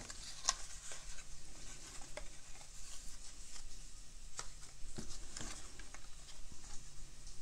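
Scattered light clicks and rustles of small message pieces being rummaged and picked out of a pitcher by hand.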